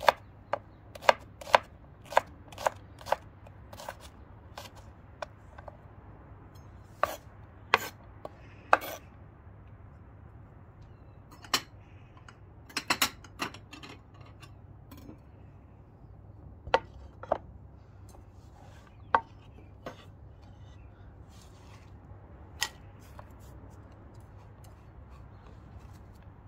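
Kitchen knife dicing a shallot on a wooden chopping board: sharp knocks of the blade on the wood, about two a second for the first few seconds, then scattered single knocks with long gaps.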